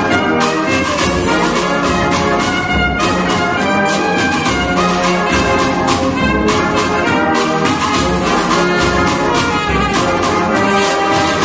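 A Spanish agrupación musical, a band of trumpets, trombones and tuba with drums, playing a processional march, the drums keeping a steady march beat under the sustained brass melody.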